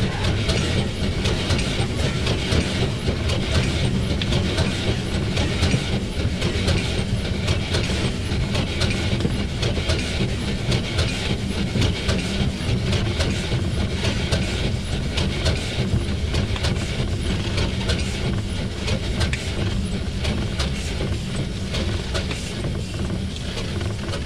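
Swedish SJ class E2 steam locomotive No. 1040 under way, heard from inside its cab: a steady clatter of wheels over the rails over the locomotive's continuous low running noise.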